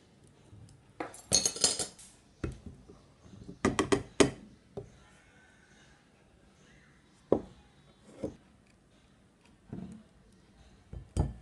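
Spoon and steel mesh sieve clinking and tapping against bowls as flour is tipped into the sieve and sifted into a glass bowl. Irregular clusters of sharp clinks, the thickest in the first four seconds, then scattered single taps.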